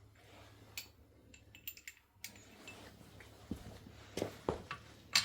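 Scattered light clicks and knocks of hand tools and engine parts being handled, a handful of separate ones over a few seconds, with a slightly louder knock near the end.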